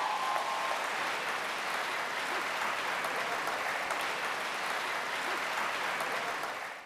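Audience applauding steadily, fading out at the very end.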